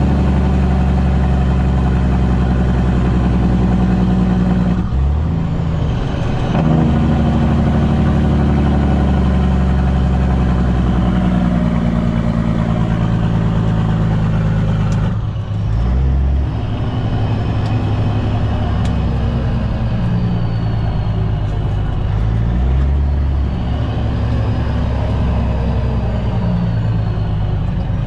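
Caterpillar C-15 diesel engine of a Kenworth T800 semi pulling an end dump trailer, heard from inside the cab. The engine note breaks briefly and comes back at a new pitch at gear shifts about five and fifteen seconds in.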